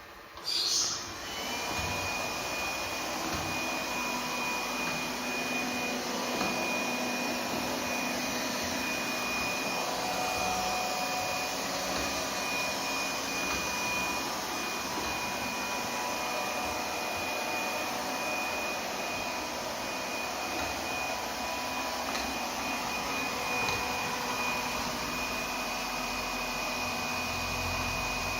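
Lefant U180 robot vacuum cleaner starting up about a second in, then running steadily: an even suction hum with a thin high motor whine.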